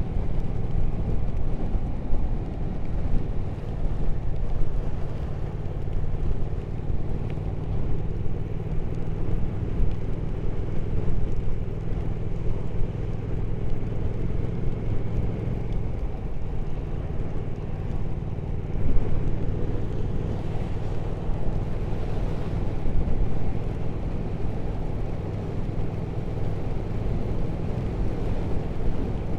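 Motorcycle engine running steadily while riding, most likely the Triumph Speed Twin 1200's parallel twin, over a steady rush of wind and road noise. The engine note shifts once about halfway through.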